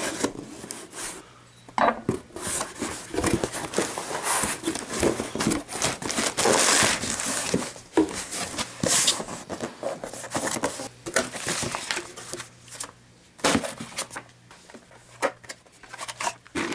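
A cardboard shipping box being opened and unpacked by hand: cardboard flaps scraping and knocking, and plastic air-pillow packing crinkling and rustling in irregular bursts.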